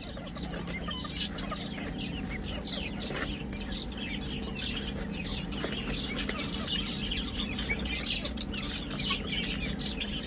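A flock of young poultry, chickens and guinea fowl keets, chirping continuously, many short high calls overlapping.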